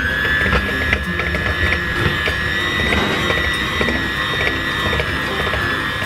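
Electric hand mixer running at a steady high whine, its twin beaters churning flour into batter, with light irregular clicking and rattling.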